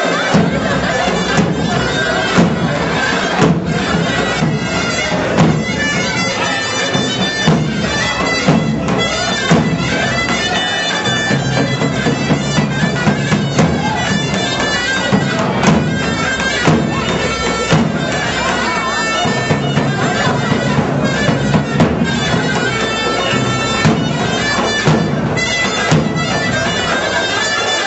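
Loud folk dance music played on a reedy wind instrument, with a drum keeping a steady beat.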